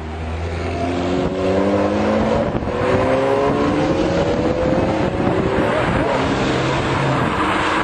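Sports car engine accelerating hard past the microphone, its pitch rising steadily for about five seconds, over a loud rushing noise.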